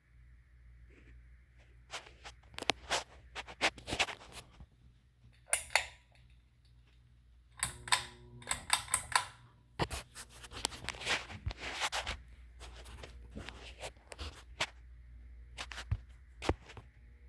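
Irregular clicks, taps and short scraping noises of objects being handled, over a faint steady low hum.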